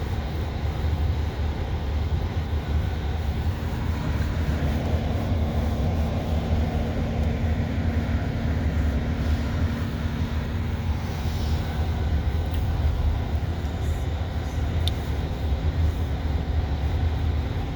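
Steady low rumble of a vehicle on the move, heard from inside the cabin: engine and road noise with a constant low hum.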